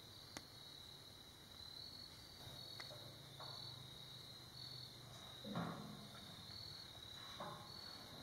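Insects chirping in a steady high trill that swells in short pulses about once a second. A sharp click comes just after the start, and soft scuffs come about five and a half and seven and a half seconds in.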